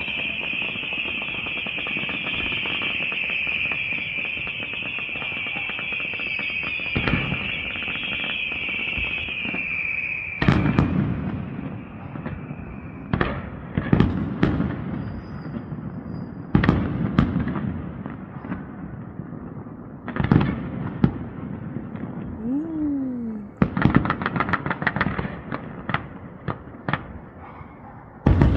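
Fireworks display: a steady high hiss for about the first ten seconds, then aerial shells bursting one after another with a ringing tail on each bang, including a quick string of bangs near the end.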